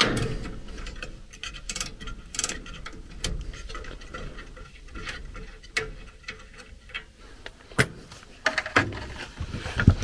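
Scattered small clicks and taps from hands working the pressure-test fittings on a furnace gas valve and handling metal tools, with one sharp click about eight seconds in, over a steady low hum.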